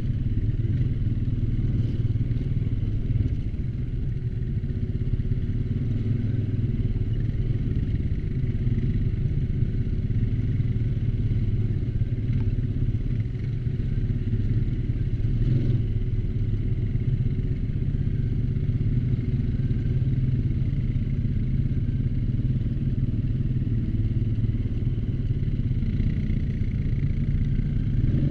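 ATV engine running steadily under way, a constant low drone with a few faint knocks along the way.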